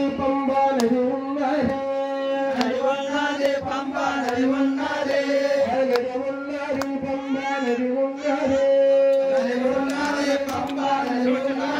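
Indian devotional music: chant-like singing over a steady drone note, with sharp percussion strikes now and then.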